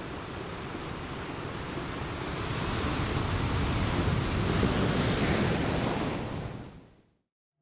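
Sea waves washing, a steady rush of surf that swells toward the middle and fades away near the end.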